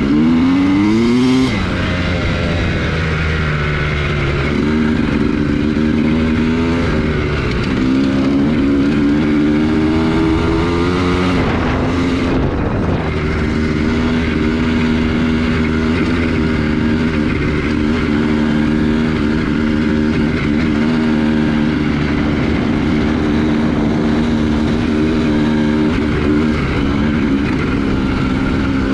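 2003 Honda CR250R's single-cylinder two-stroke engine under way on a dirt road: revving up through the gears in the first second or two and again around 5 and 8 seconds in, easing off about 12 seconds in, then holding a steady throttle before picking up again near the end.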